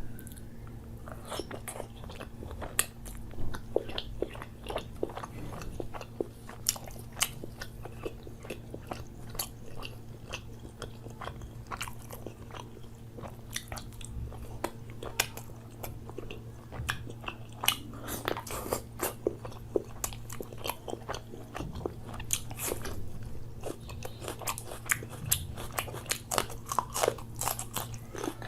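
A person chewing and biting butter chicken close to the microphone: many irregular sharp clicks and crunches, over a steady low hum.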